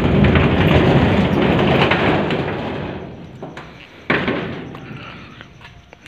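Corrugated metal sheet rattling and scraping as it is pushed by hand: a sudden long rattle that dies away over about three seconds, then a second shorter one about four seconds in.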